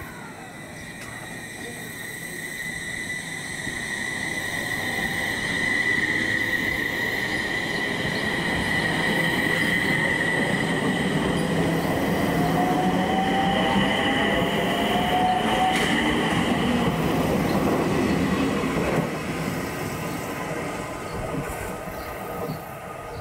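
A train running along the track, growing louder over the first six seconds, with a high, steady squeal from the wheels; it drops away after about nineteen seconds.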